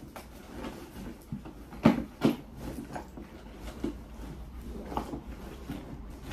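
Handling noise of packing a fabric tote bag: rustling with scattered soft knocks as things go into it, two louder thumps close together about two seconds in.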